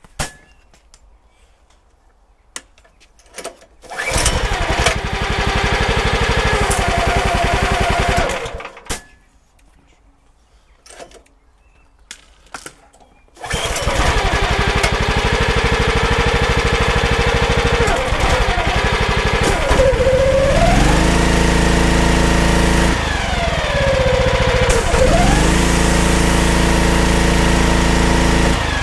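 Briggs & Stratton petrol engine on a belt-driven pressure washer starting, running about four seconds and cutting out, then starting again and idling. Twice it revs up to a steady higher speed with a deeper hum underneath, and twice it drops back to idle: the auto throttle revving it up when the spray-gun trigger is pulled and letting it idle when the trigger is released.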